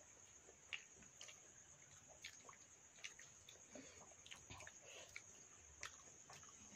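Faint sounds of eating by hand: soft clicks and wet squelches from fingers mixing rice in water in steel bowls and picking up fried vegetables, with quiet chewing, over a steady high-pitched hiss.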